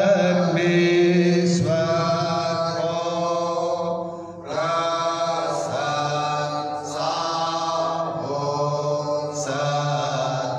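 A slow hymn sung in a chant-like style with long held notes. The phrases break every two to three seconds, with a short pause about four seconds in.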